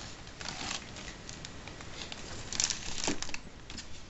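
Styrofoam packing being pulled apart and lifted off, with plastic wrapping crinkling, in several scratchy bursts, the loudest about two and a half to three seconds in.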